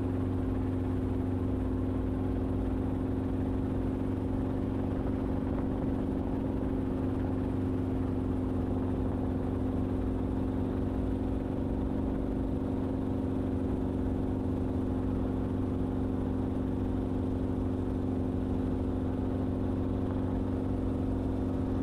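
Enstrom helicopter in flight, heard from inside the cockpit: a steady drone of engine and rotors with a constant low hum, holding at one level.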